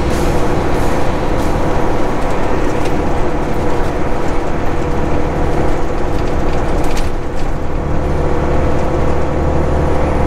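Semi truck cruising at highway speed, heard from inside the cab: a steady diesel engine drone under constant road and tyre noise.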